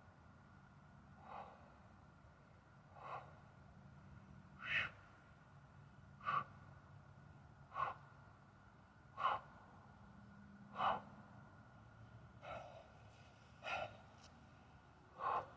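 A man's sharp, breathy exhalations, about ten of them, one every second and a half or so, in time with sledgehammer lever reps, louder from about four seconds in.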